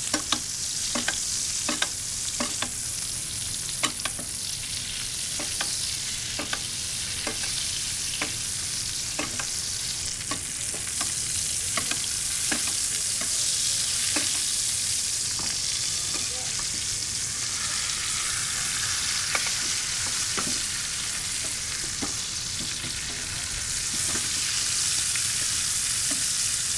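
Steaks sizzling in foaming garlic butter in a stainless steel skillet over a gas flame, while a metal spoon bastes them, clinking against the pan again and again. The sizzle swells a little about halfway through and again near the end.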